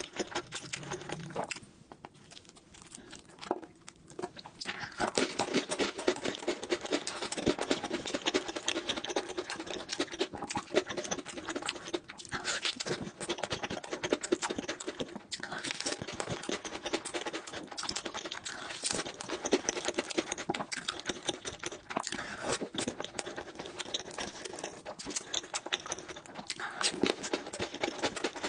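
Close-miked chewing and wet, sticky mouth sounds of eating soft cheesecake and cream, a dense stream of small clicks and smacks. It goes quieter for a couple of seconds near the start, then picks up again.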